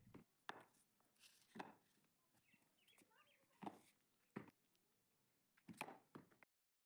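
Near silence with a handful of faint, short taps or knocks, about five of them spread out, before the sound cuts off to dead silence near the end.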